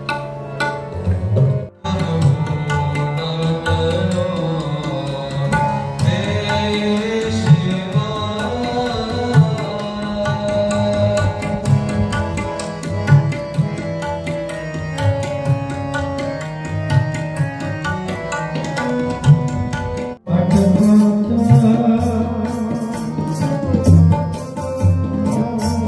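Live Sikh kirtan: a harmonium holding sustained chords over rhythmic tabla strokes, with voices singing the hymn. The sound breaks off abruptly twice, about two seconds in and again near the end, where the recording cuts.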